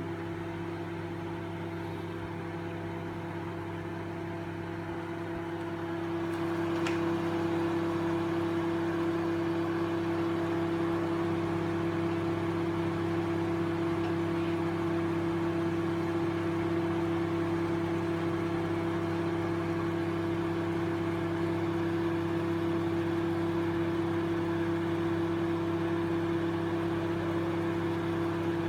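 Microwave oven running on full power with a steady hum and whir, its main tone growing louder about six seconds in. It runs but, by the tenant's account, does not heat the food: it is broken inside.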